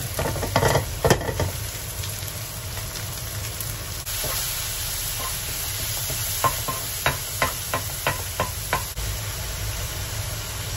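Sliced porcini and king oyster mushrooms sizzling in a hot nonstick wok as a spatula stir-fries them. The spatula clacks and scrapes against the pan in sharp clicks, a few near the start and a run of them later on.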